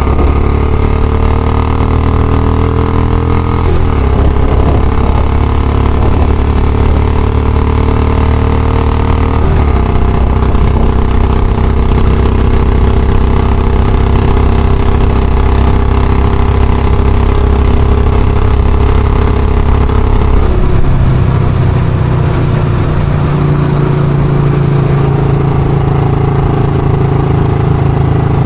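Royal Enfield Classic motorcycle's single-cylinder engine running steadily, its speed shifting to a new even level a few times and settling at a higher engine speed for the last third.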